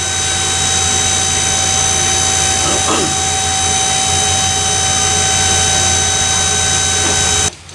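A machine running steadily with a high, even whine over a low hum, cutting off abruptly near the end.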